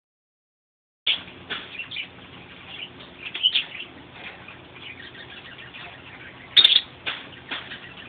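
Pet cockatiels chirping in short, sharp calls that start about a second in, with the loudest call about six and a half seconds in.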